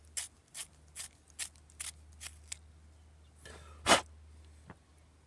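Wooden pencil being twisted in a small handheld metal pencil sharpener: a run of short scrapes, about two and a half a second, as the blade shaves the tip. The scraping stops about halfway through, and a single loud sharp knock follows about four seconds in.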